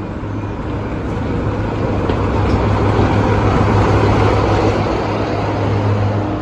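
Diesel locomotive passing slowly at close range, its engine running with a steady low drone, growing louder as the locomotive draws level about halfway through and easing slightly as the coaches follow.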